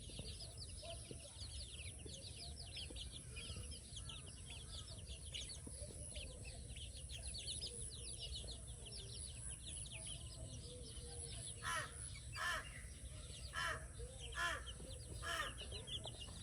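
A brood of baby chicks peeping without a break, in quick short high cheeps. Near the end a crow caws five times, about one caw a second, louder than the chicks.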